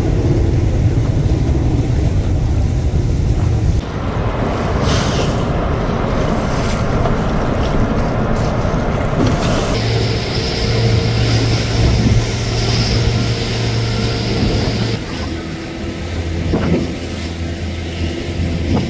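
Boat engine running steadily under heavy low rumbling noise, the sound shifting abruptly every few seconds. A steady engine hum stands out for a while in the middle.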